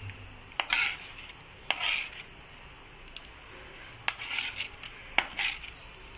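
Metal spatula scraping thick halwa out of a steel pan, with several sharp clinks of metal on metal, each followed by a short scrape.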